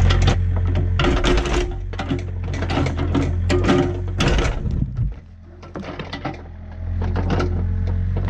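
Compact excavator's engine running under hydraulic load, with crackling and knocking from the bucket working dirt and roots around a stump during the first few seconds. The engine sound drops away about five seconds in and comes back up near the end.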